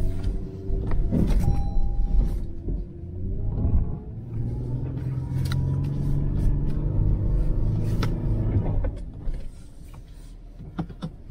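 2020 Toyota 4Runner's 4.0-litre V6 engine running under throttle as the truck pushes up a hairpin through deep snow. The pitch wavers, and about nine seconds in the engine drops back as the driver lets off. Scattered light clicks and knocks are heard throughout.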